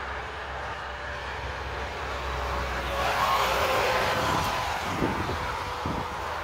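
Engine noise from a passing vehicle, swelling about halfway through with a faint tone sliding down in pitch, then easing off, over a steady low hum.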